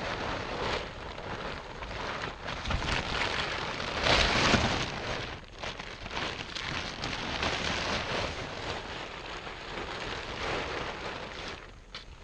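Loose compost material (grass clippings and brown matter) being unloaded from a trailer onto a pile: continuous rustling and scraping, loudest about four seconds in and easing off near the end.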